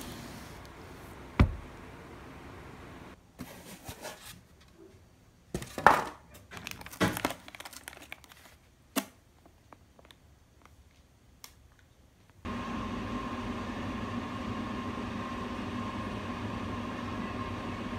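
Plastic packaging crinkling and rustling as packs are handled, with a few sharp knocks and one thump. In the last third a steady hum with a faint whine takes over.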